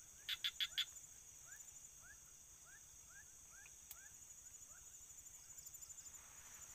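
Night insect chorus: a steady, high-pitched cricket trill throughout. Four sharp chirps come just after the start, then a run of short rising calls at about three a second.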